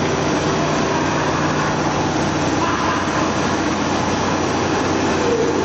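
Kraft paper making machine running: a steady mechanical din of rollers and drives with a low hum that drops a little in pitch about halfway through.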